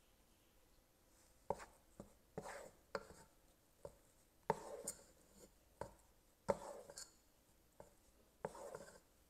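Wooden spoon knocking against the side of a metal pot and scraping through sticky, half-melted mini marshmallows: about ten sharp knocks at uneven spacing, several trailing into a short scrape, starting about a second and a half in. The marshmallows are at the sticky stage, not yet melted smooth.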